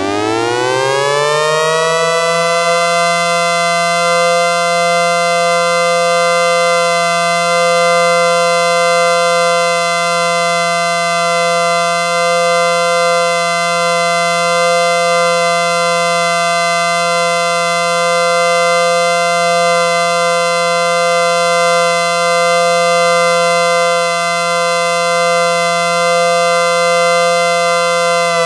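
ACA Screamer/Banshee civil defense siren winding up to a steady, loud multi-tone chord, holding it, and starting to wind down right at the end.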